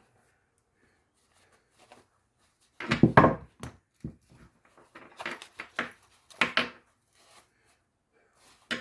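Hand tools being handled and set down: several short clusters of knocks, clunks and rubbing, the loudest about three seconds in.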